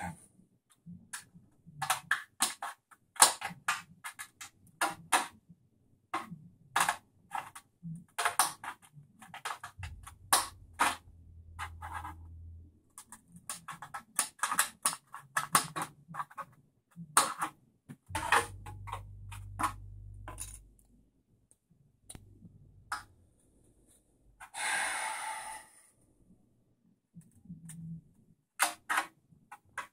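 Scissors snipping a clear plastic RC body shell, and the stiff plastic clicking and crackling as it is handled and held against the chassis: a string of sharp irregular clicks. About two-thirds of the way through there is a longer scraping rasp lasting a second and a half, and a low hum comes and goes twice.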